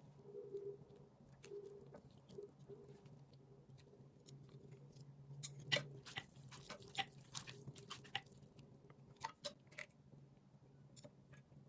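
Faint eating sounds: chewing with small crunches and clicks, busiest from about halfway through, over a low steady hum.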